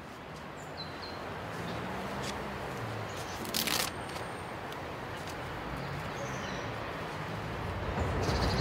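Open-air ambience: a steady low rumble with a few short bird chirps and one brief rustling burst about three and a half seconds in. The rumble grows louder near the end.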